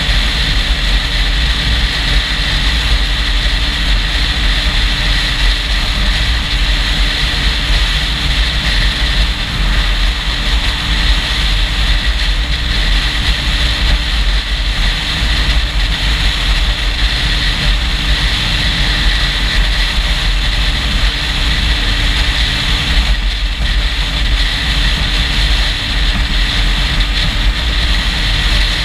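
Motorcycle running steadily at road speed, with heavy wind rumble on the GoPro's microphone; the engine tone holds steady and edges up slightly near the end.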